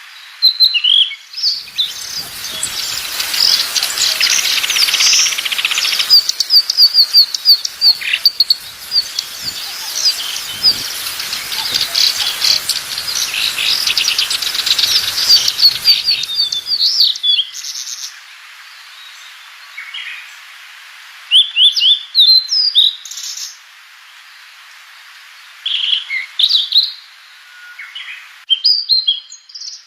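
Small songbird singing: a long, fast run of high chirps and trills for about the first half, then short separate phrases of chirps with pauses between them.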